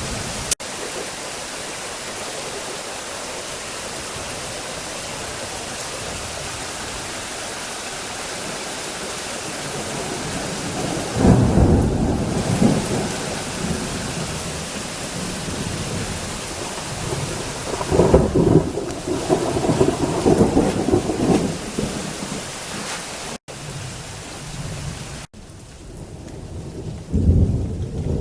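Heavy rain falling steadily while thunder rolls, with long rumbles about 11 seconds in, again about 18 seconds in, and once more near the end. The sound cuts out briefly a few times, and after that the rain hiss is softer.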